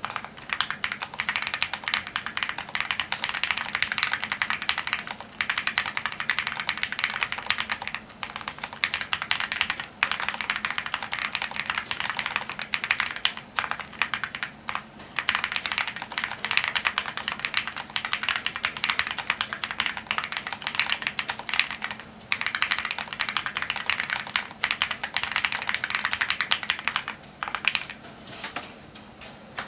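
Fast typing on a mechanical keyboard fitted with linear switches: a dense run of quick keystroke clacks, broken by several short pauses.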